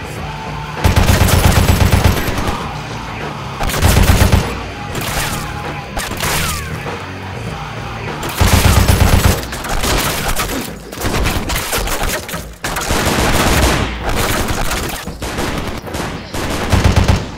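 Automatic gunfire in four loud rapid-fire bursts, the longest about a second and a half near the start, with scattered single shots in between.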